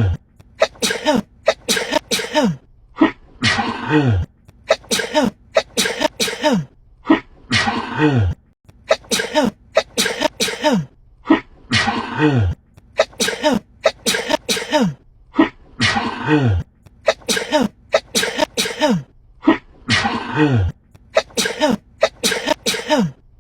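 A woman sneezing over and over in a rapid, uncontrollable fit, roughly one to two sneezes a second. Many of the sneezes end in a voiced "achoo" that falls in pitch.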